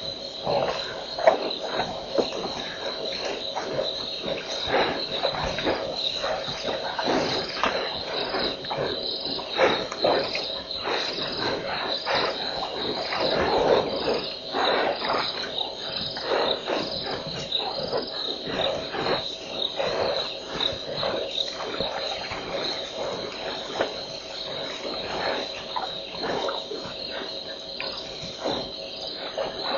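A night chorus of crickets: a steady high-pitched trill, with irregular soft knocks and rustles throughout.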